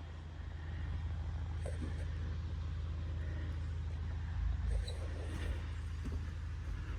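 Steady low rumble of a running vehicle engine, getting a little louder about a second in.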